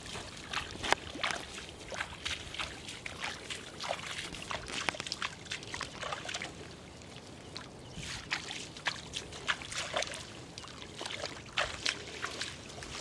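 Bare feet wading through shallow water over mud, a steady run of small, irregular splashes and sloshes.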